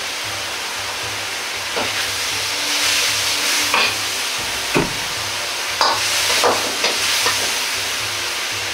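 Pork and deep-fried tofu sizzling in a wok while a metal ladle stirs them. The ladle scrapes and knocks against the wok about seven times from about two seconds in.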